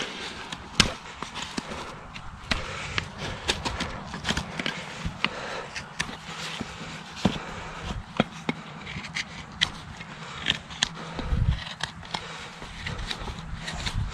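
A farrier working on a horse's hoof with hand tools: irregular sharp clicks and snaps with scraping between them.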